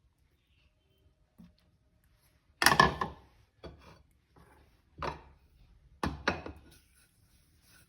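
Crispy fried chicken being bitten and crunched close to the microphone: a loud crunch about two and a half seconds in, then three more crunches over the next few seconds.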